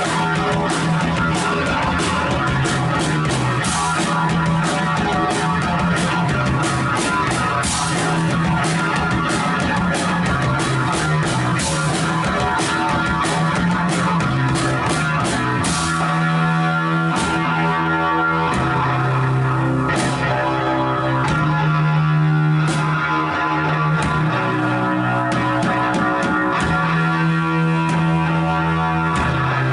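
Live rock band playing loud, with distorted guitar and drum kit. The drumming is fast and busy for about the first half, then thins out to occasional hits under held low guitar notes.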